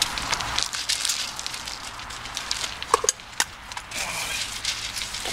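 Dogs eating dry kibble from bowls, two of them Shetland sheepdogs: irregular crunching and clicking as they chew. There is a short squeak about three seconds in.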